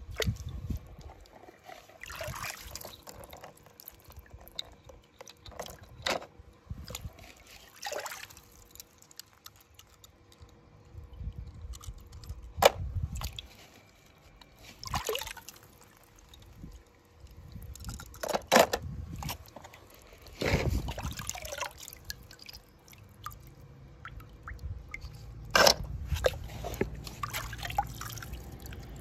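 Small splashes and drips of water with scattered sharp clicks and knocks, as toy cars are handled and dropped into water.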